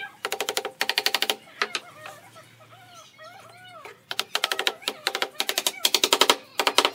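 A wooden mallet tapping rapidly on the edges of pine boards, driving them down into a grooved wooden rail. The blows come in quick runs with a short ring, and the runs stop for a pause about two seconds in. In that pause faint animal calls rise and fall.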